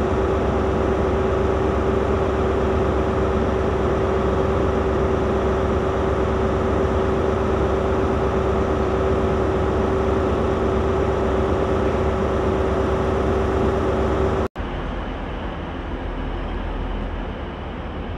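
Class 43 HST power car's diesel engine idling steadily, a high steady whine over the engine's running. About fourteen and a half seconds in it cuts off abruptly, and a quieter, steady engine sound of the train further off follows.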